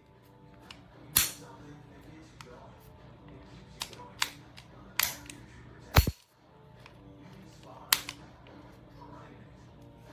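CO2 BB air pistol firing: about six sharp pops at irregular intervals of roughly one to two seconds, the loudest about six seconds in.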